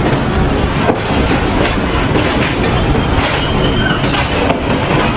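Shovels scraping and turning wet sand-cement mortar on a concrete slab, with scraping strokes about once a second over a loud, steady rumbling construction-site noise.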